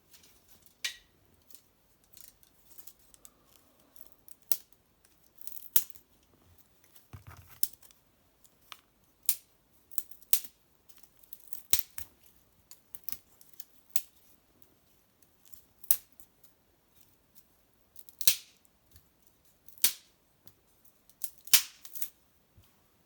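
Small fire of dried maple brushwood crackling in an irori hearth: irregular sharp pops and snaps, a few of them much louder than the rest.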